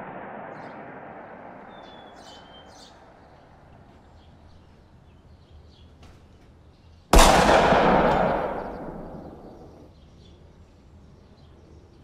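A single loud shotgun blast about seven seconds in, dying away over two to three seconds. Before it, faint bird chirps over the tail of the music fading out.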